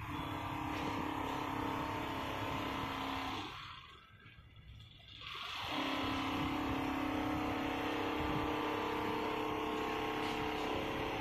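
Computerized single-needle quilting machine running as it stitches: a steady mechanical whine with a few held tones. It drops away for about two seconds a third of the way in, then starts up again.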